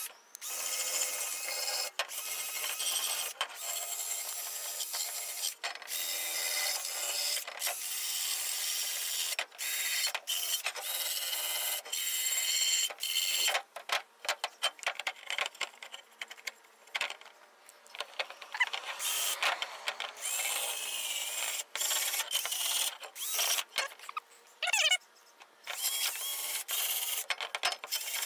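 Wire wheel in a cordless drill scrubbing old RTV gasket sealant off the flange of a steel differential cover. It is a steady rasping scrub in passes broken by short pauses, which come more often in the second half.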